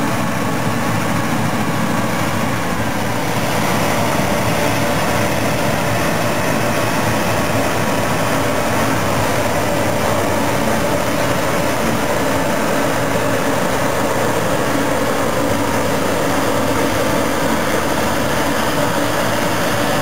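Claas Lexion 540 combine harvester running under load while harvesting, its engine and threshing machinery making a steady, loud drone. The drone grows a little louder a few seconds in as the machine comes close.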